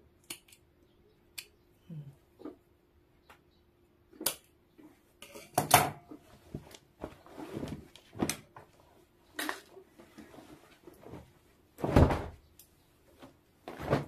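Scissors snipping lace and denim jeans being handled on a table: a few light snips early on, then scattered fabric rustles and soft thumps, the loudest about six and twelve seconds in.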